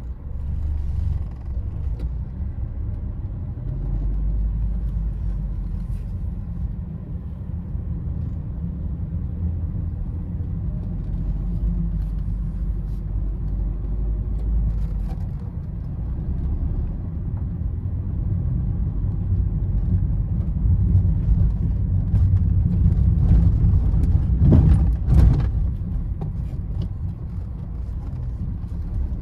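Inside the cabin of a moving 2007 Honda Fit with the 1.4-litre four-cylinder petrol engine and manual gearbox: a steady low engine and road rumble that gets louder about two-thirds through, with a short louder noise near the end.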